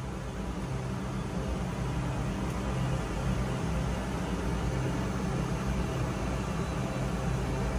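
Steady drone of running machinery, as in a ship's engine room: a constant low hum under an even hiss.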